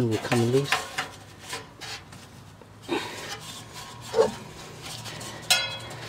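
A furnace blower wheel's hub, seized on the motor shaft, is twisted back and forth to work it loose: scattered metal rubbing, scraping and clicking. A thump comes about four seconds in, and a sharp metallic clank with a brief ring about five and a half seconds in.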